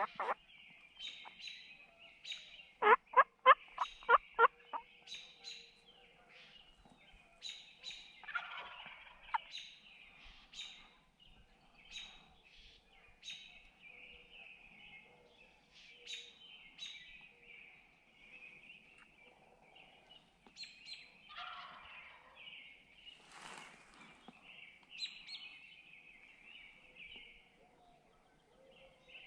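Wild turkey gobbler gobbling: a loud, rapid rattling gobble about three seconds in, with fainter calls later. Songbirds chirp throughout.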